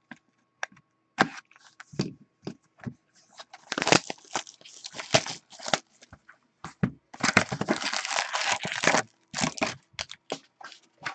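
Plastic shrink wrap being cut and torn off a box of 2018-19 Upper Deck Ice hockey cards, crinkling in short irregular bursts. About seven seconds in, a two-second stretch of continuous crinkling follows as the box is opened and its foil packs are handled.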